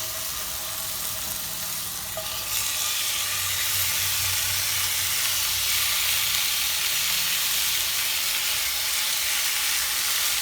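Chicken breast strips sizzling as they fry in hot oil in a pan. The sizzle grows louder and brighter about two and a half seconds in, then holds steady.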